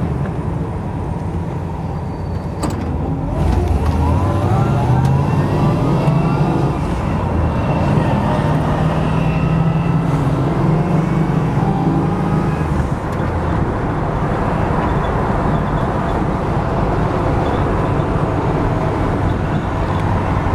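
1965 Pontiac GTO's 389 V8, heard from inside the cabin while driving. It picks up speed with a rising note about three seconds in, then runs steadily, with a brief drop near two-thirds of the way through.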